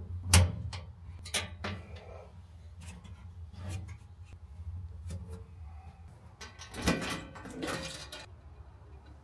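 Sharp clicks and light metallic knocks as screws are undone with a small hex driver inside a laser engraver's sheet-metal cabinet, over a low steady hum. About seven seconds in comes a longer, rougher stretch of noise as the machine's front door is opened.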